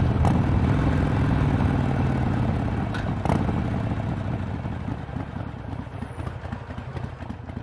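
Harley-Davidson Sportster XL883R's 883 cc V-twin through a Vance & Hines exhaust, throttle closed and slowing: the exhaust note fades steadily and breaks into separate loping pulses near the end. A sharp clunk about three seconds in.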